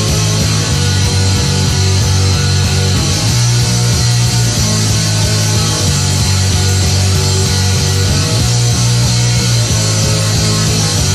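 Rock band playing a loud, dense studio recording, with guitars over a low bass line that moves between notes.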